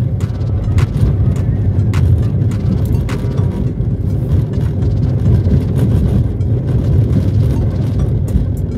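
Car driving along an unpaved dirt road, heard from inside the cabin: a steady low rumble of engine and tyres, with occasional sharp knocks and rattles as it goes over bumps.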